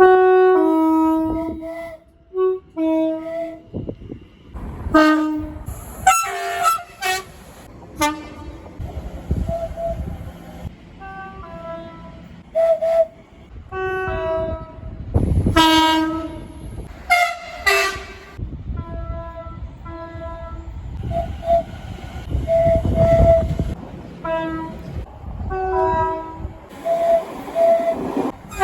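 Train horns from a series of different trains, one after another: mostly short blasts, many sounding two notes of different pitch in turn, with sudden cuts between recordings. Under some of them is the low rumble of a passing train.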